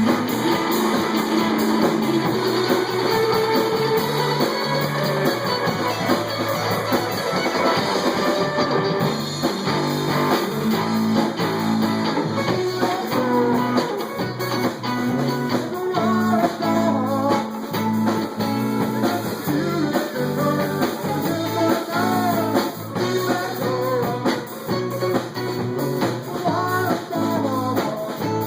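A live rock band playing an instrumental passage, with electric guitar and drum kit.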